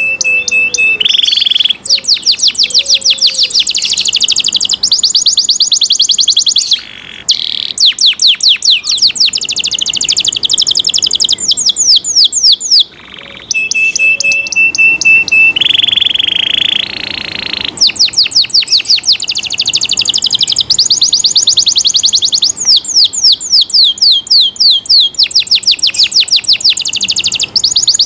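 Domestic canary singing a loud, continuous song of rapid trills, fast runs of repeated falling notes, broken by a few brief pauses, with a short held whistled note and a short buzzy stretch.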